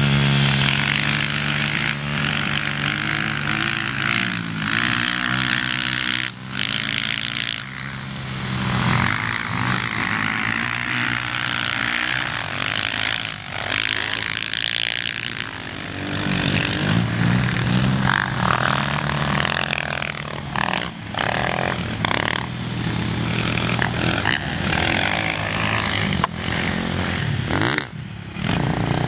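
Small ATV (quad) engines running continuously as the quads ride over sand, the engine note rising and falling in pitch with the throttle.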